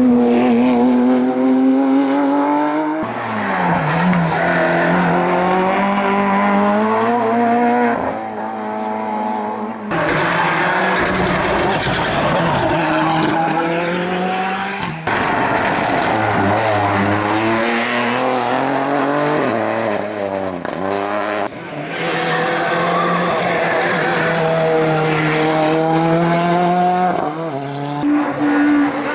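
Hillclimb race cars running flat out, one after another. Engine pitch climbs and drops with gear changes and braking, with tyre squeal at times, and the sound jumps abruptly several times between different cars.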